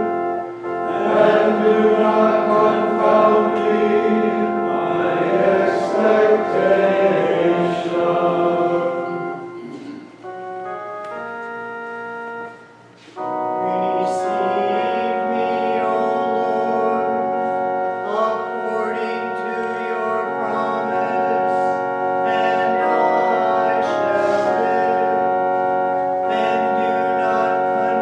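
Choir of Trappist monks singing a chant-like hymn together. The singing thins to a few quieter held notes a bit before halfway, then comes back fuller with long sustained notes.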